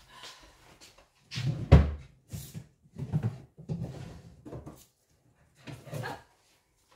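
Rummaging through storage: a series of knocks and thumps mixed with short rustles of paper and objects being moved, the loudest thump just under two seconds in, as a sheet of cardstock is searched for.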